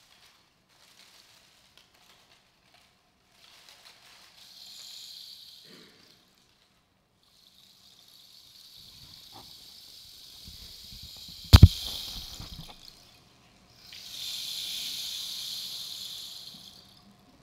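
A long dried plant tube, used like a rainstick, is tipped end to end so that its loose contents pour through with a hissing patter, three times. Midway through the second pour comes one sharp, loud knock with a low ring.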